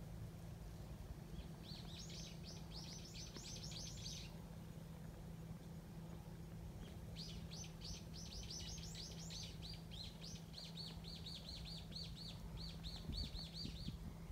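A small songbird singing two rapid trills of short, quick, downward-sweeping notes: a brief one a second or two in, and a longer one starting about halfway through that becomes more even near the end. A few soft low knocks come near the end.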